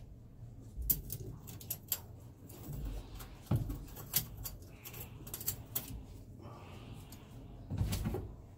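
Irregular metallic clicks, ticks and clinks of hands handling hose clamps and fittings on a Yanmar marine diesel's turbocharger, with a duller knock midway and a louder one near the end.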